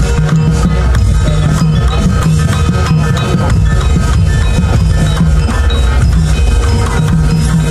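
Very loud music with heavy bass and a steady beat, played through a truck-mounted 'horeg' carnival sound system.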